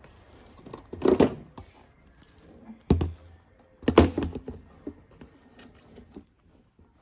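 Knocks and clatters of dog food bowls being handled on a shop shelf. There are three louder thunks, about a second in, near three seconds and near four seconds, with lighter clicks between them.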